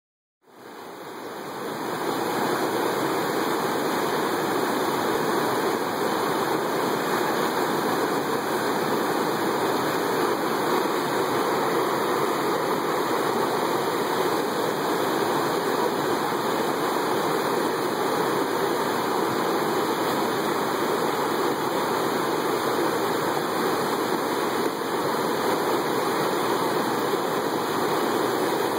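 Whitewater rushing steadily as the river pours over a rock ledge into a foaming hole, fading in over the first couple of seconds.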